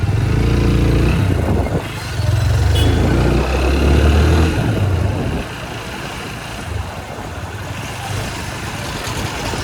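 Motorcycle riding on a highway: engine, wind and traffic noise, with a loud, heavy rumble for the first five seconds that settles to a steadier, quieter drone.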